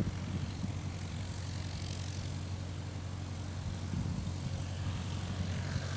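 Cessna 150K's four-cylinder Continental O-200 engine and propeller running steadily, heard as a faint, even low drone.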